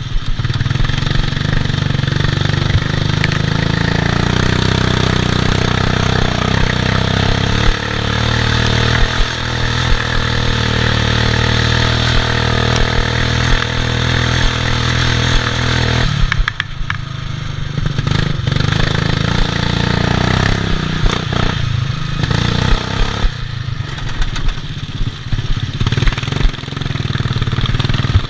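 Onboard sound of a racing ride-on mower's engine running hard under load. The revs ease off briefly about sixteen seconds in and again about twenty-three seconds in, then pick back up.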